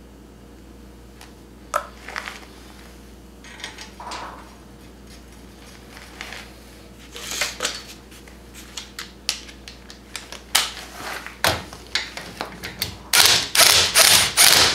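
Hand tools working a steel suspension bolt: scattered clicks and clanks of metal on metal, then in the last second and a half a fast run of loud ratchet strokes as the Loctited ball-joint bolt is run in.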